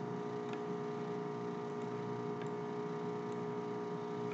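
Steady electrical hum with a light hiss from the recording setup, and a few faint clicks.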